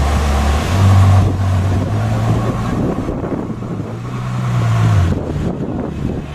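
Ferrari FF's 6.3-litre V12 engine pulling away at low speed. Its note steps up in pitch about a second in, climbs gently, then drops back about five seconds in.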